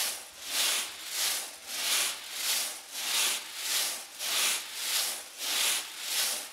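Seed tumbling inside a rotating metal seed-treatment drum, a rushing hiss that swells and fades about twice a second as the drum turns over.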